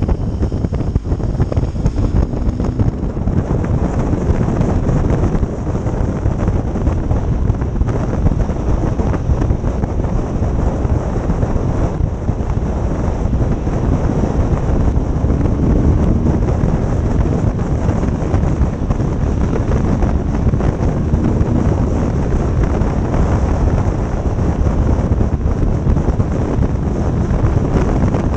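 Wind buffeting the microphone of a camera on a moving motorcycle, a loud steady rush, with the BMW R 1200 GS Adventure's boxer-twin engine running beneath it.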